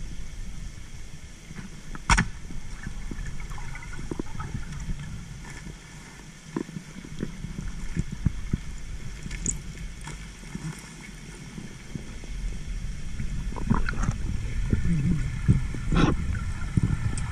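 Underwater sound picked up by a camera in its waterproof housing: a dull, steady rumble of water moving past, with scattered clicks. There is one sharp click about two seconds in, and the clicking and crackling grow louder and busier near the end.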